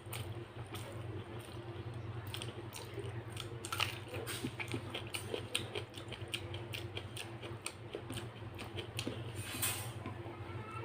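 Close-up eating sounds: irregular wet clicks and smacks of chewing and handling food, coming thickest about four to six seconds in, over a steady low hum.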